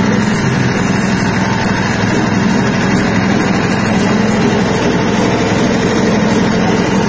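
Soybean skin-peeling (dehulling) machine for wet tempeh soybeans running, its motor giving a loud, steady drone.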